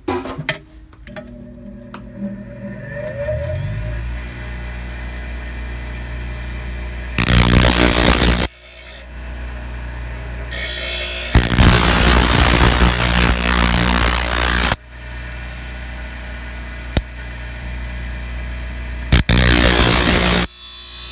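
6-inch bench grinder switched on and spinning up to speed, then running steadily. A steel knife blade is ground against the wheel in three loud spells, the longest in the middle, sharpening a dull chef's knife.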